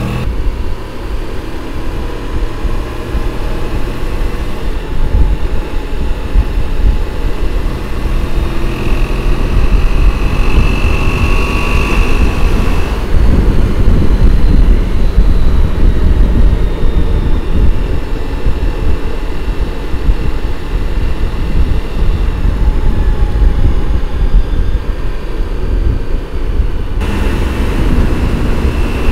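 Honda VFR750F's V4 engine running at road speed with heavy wind rush. The engine note is clearest in the first few seconds, and the sound grows louder after about eight seconds.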